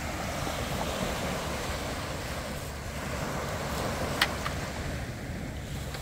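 Small waves breaking and washing up on a sandy beach, a steady surf noise with wind rumbling on the microphone. A single sharp click about four seconds in.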